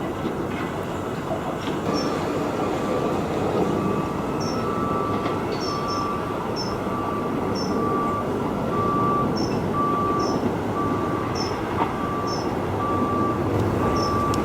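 Sound-effect track of a moving train: a steady rumble with a short squeak repeating about every two-thirds of a second, and faint high chirps scattered over it.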